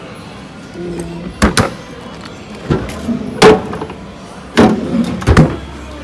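Refrigerator drawers being slid open and pushed shut, giving a series of sharp clunks and knocks, the loudest about three and a half seconds in and several more close together near the end.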